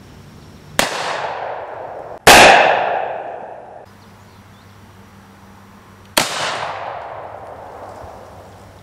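Three gunshots, a .357 Magnum revolver first and then rifles, each followed by a long echo that dies away; the second shot, about two seconds in, is the loudest.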